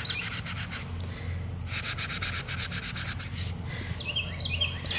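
Sanding sponge rubbed by hand in quick back-and-forth strokes over a chalk-painted table top, scuffing down the paint.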